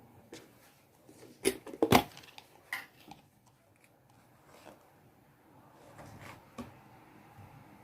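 Clear slime being handled and squeezed by hand. There is a quick cluster of sharp, crackling clicks about one and a half to two seconds in, with a few softer clicks later.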